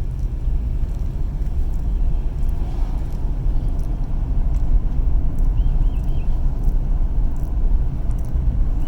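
2011 Ford Edge FWD on the move: a steady low rumble of engine, road and drivetrain noise.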